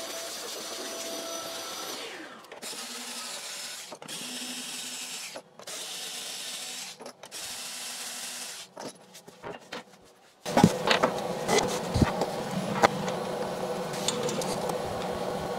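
A shop vacuum hose briefly sucking up dust, then a small cordless screwdriver running in four or five short runs of about a second and a half each as the hold-down clamp screws are undone. From about ten seconds in, knocks and clatter of the clamps and the MDF jig being handled.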